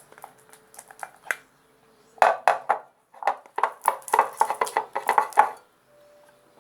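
Spoon stirring freshly activated slime (glue with baking soda and boric-acid water) in a container, knocking and scraping against the sides. There are a few scattered taps, then a quick cluster of strokes about two seconds in, then a fast run of strokes lasting about two seconds.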